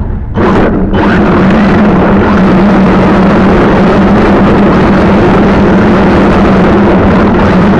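Onboard sound of a radio-controlled drift car running over asphalt: a loud, steady motor hum under a continuous rush of tyre and wind noise, starting suddenly about half a second in.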